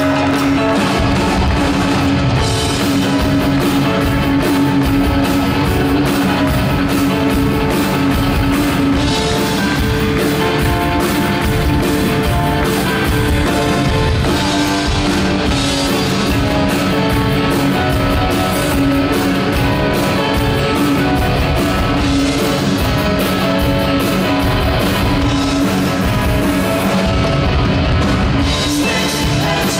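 Live rock band playing loudly: electric guitar, keyboards and drum kit, with the drums coming in right at the start.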